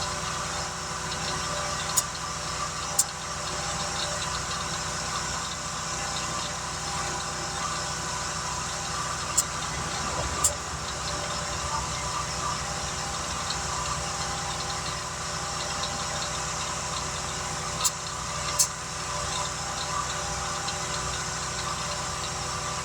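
Steady machine hum, like an engine idling, with a pair of sharp clicks about a second apart recurring three times.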